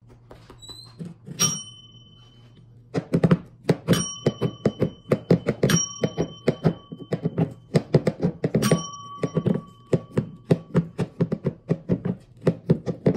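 Desk service bell dinged four times, each ding ringing on for about a second, among a fast, irregular run of knocks and taps.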